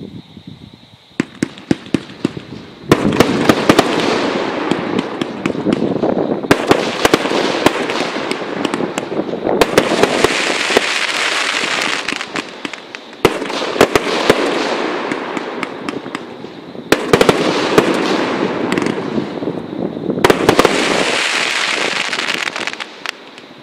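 A 500-gram, 30-shot consumer fireworks cake firing in a string of volleys. Each volley opens with sharp launch and burst reports, followed by several seconds of dense crackling from the titanium-gold coconut and crackling-willow stars.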